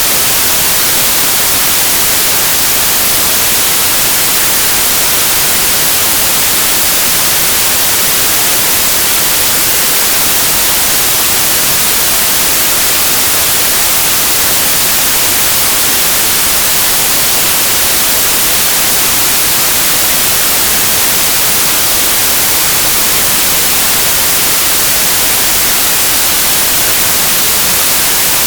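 Steady, unchanging white noise: an even, loud hiss, brightest in the high frequencies.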